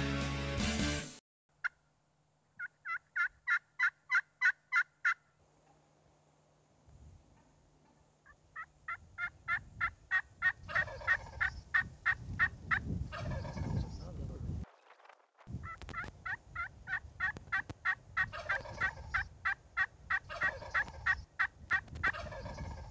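Wild turkeys calling: runs of evenly spaced yelps at about three a second, each run lasting a few seconds, with a lower, rougher sound beneath the later runs.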